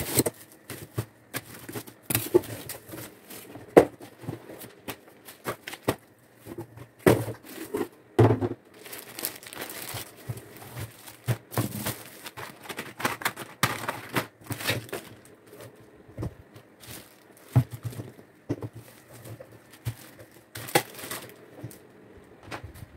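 Plastic packaging being handled: cellophane wrap and plastic bags crinkling and rustling in irregular bursts, with a few sharper knocks as items and catalogues are moved and set down.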